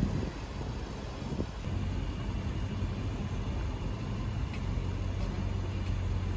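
Aston Martin DB12's twin-turbo V8 easing off from a short low rumble, about half a second in, into a steady idle as the car comes to a stop at the kerb.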